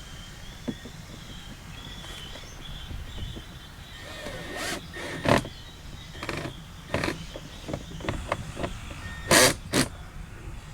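Scattered clicks and knocks of car door trim parts being handled and fitted into place over a low steady rumble, the loudest knocks about five seconds in and a close pair near the end.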